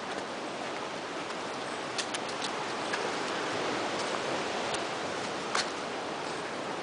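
Footsteps on dry leaves and twigs on a forest trail, with a few sharp snaps and crackles, the loudest about five and a half seconds in, over a steady rushing background noise.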